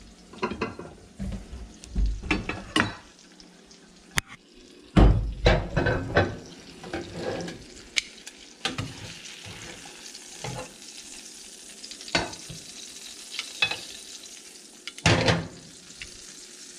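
Butter sizzling in a stainless steel pan around a ribeye steak, with repeated clinks and knocks of metal tongs against the pan as the steak is lifted out onto a plate; the loudest knocks come about five seconds in and again near the end.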